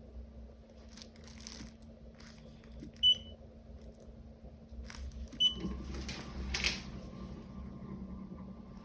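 3D printer beeping twice with short high electronic beeps, about three seconds in and again about two seconds later. Between and around them come brief scraping and handling noises of printed parts. Just after the second beep a low steady hum sets in.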